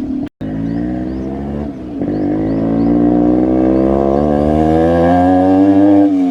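Yamaha RX135's two-stroke single-cylinder engine running through a cat silencer with the muffler insert removed, heard while riding. After a brief cut about a third of a second in, the note holds steady, then climbs slowly as the bike pulls from about two seconds in.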